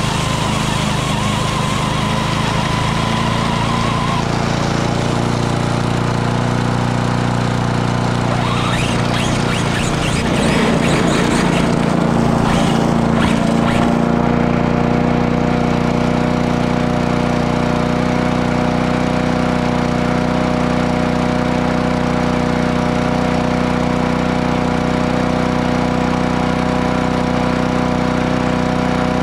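A push mower's small gasoline engine running steadily close by. A high whine sits over it for the first few seconds, and a stretch of rattling and clattering runs from about nine to fourteen seconds in.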